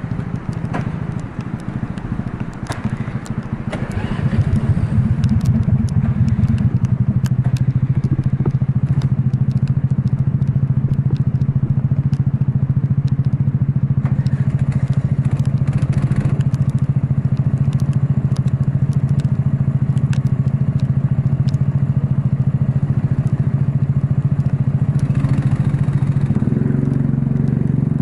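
Racing kart engine running hard. It picks up about four seconds in, then holds a steady high note, with scattered clicks and crackles over it.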